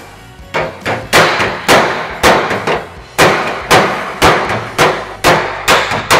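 Body hammer striking the dented sheet-steel hood of a 1940 Willys against a dolly: a steady run of sharp, ringing metal blows, about two a second, starting about half a second in. The hammering is knocking out a hard crinkle in the panel.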